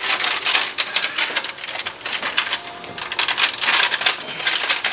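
Adhesive-backed, foil-faced heat insulation sheet crinkling and crackling as a gloved hand presses and works it into place, its backing half peeled. The crackle is dense, softens in the middle and picks up again near the end.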